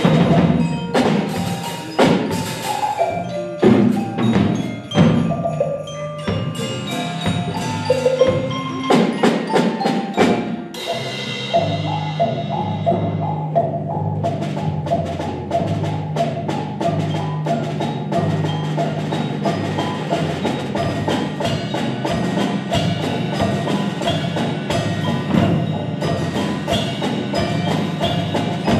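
School percussion ensemble playing on marimbas, xylophones and other mallet instruments with a drum kit. A bright ringing hit comes about ten seconds in, and after it the music settles into a steady repeating pattern over sustained low notes.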